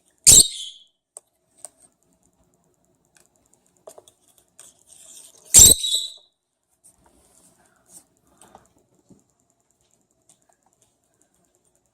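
Light ticking, tapping and scratching of lovebirds moving about, with claws and beaks on their enclosure. Two loud, sharp knocks come out above it, one just after the start and one about five and a half seconds in.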